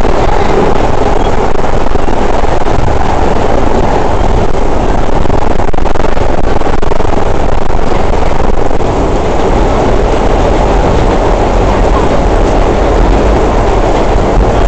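Vintage IND R1/R9 subway train heard from inside a car while running: a loud, steady rumble of wheels on the rails, easing off slightly about nine seconds in.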